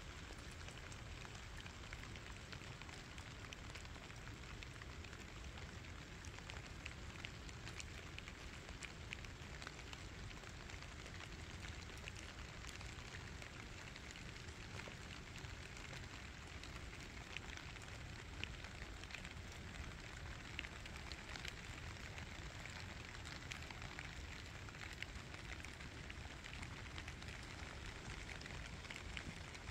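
Steady rain falling, with scattered drops tapping close by.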